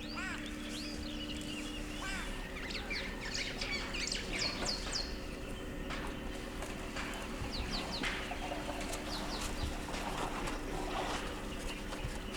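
Several birds calling, with many short arching and falling chirps, over a steady low hum.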